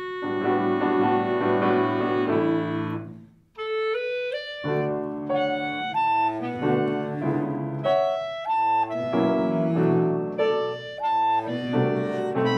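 Piano, clarinet and cello trio playing a mellow, jazz-inspired piece, the clarinet to the fore. The music breaks off briefly about three and a half seconds in, then one line comes back in alone before the full trio resumes.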